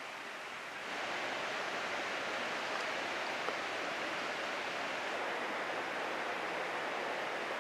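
Shallow brook flowing over rocks and riffles: a steady rush of running water that grows slightly louder about a second in.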